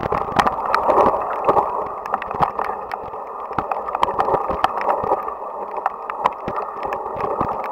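Mountain bike going down a rough dirt trail, heard from a camera mounted on the bike or rider: a steady rushing noise with frequent irregular rattles and knocks as the bike goes over bumps.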